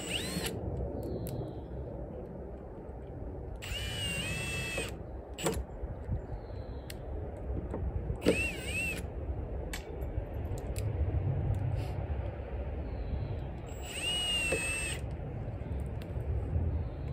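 Electric screwdriver driving screws in four short runs of about a second each, its motor whine rising and falling in pitch with each screw.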